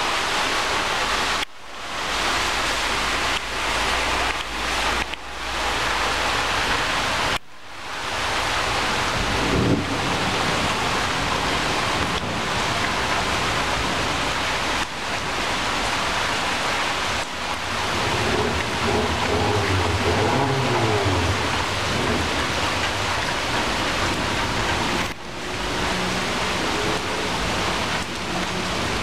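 Heavy rain pouring steadily onto leaves and the ground, a dense, even hiss that breaks off briefly a few times. A low rumble rises and fades about two-thirds of the way through.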